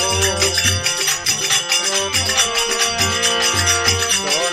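Instrumental interlude of a Rajasthani folk bhajan: sustained melody notes over a steady low drum beat, with jingling, shaker-like percussion throughout.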